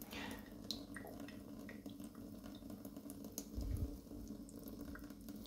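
Faint trickling and scattered drips of tap water running slowly through the compartments of a 3D-printed PLA biofilter, over a steady low hum.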